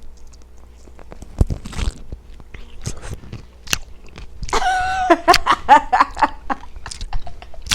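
Close-miked crunchy bites and chewing of a pickle, with one loud crunch about a second and a half in and wet crackling chews after it. A short vocal sound comes about halfway through.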